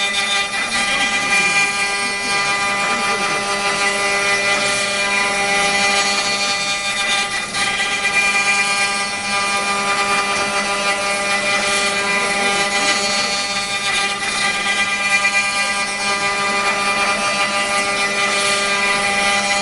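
Multi-spindle CNC wood router running, its spindles giving a steady whine made of several held tones over a machine hum.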